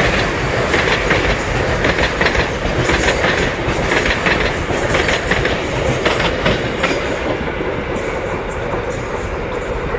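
A freight train's container wagons rushing past at speed, the steel wheels clattering rhythmically over the rail joints under a steady rumble, easing a little toward the end.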